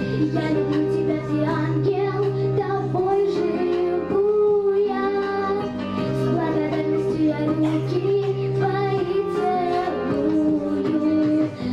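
A young girl singing into a handheld microphone, holding long notes, over instrumental backing music.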